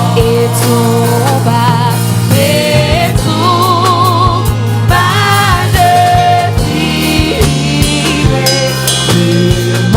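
Gospel worship song: a sung melody with vibrato over a band's sustained low chords and drum hits.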